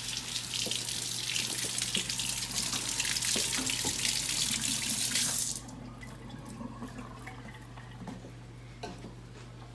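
Kitchen sink tap running, water splashing into the sink, then shut off suddenly about five and a half seconds in, over a steady low hum.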